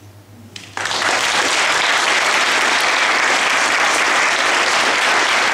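Audience applauding: the clapping of a roomful of people breaks out suddenly about a second in and keeps up steadily.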